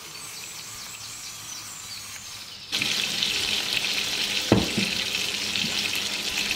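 Tomato slices frying in olive oil and butter in a pan. A faint sizzle becomes abruptly louder almost three seconds in and then holds steady. A single sharp knock comes about a second and a half later.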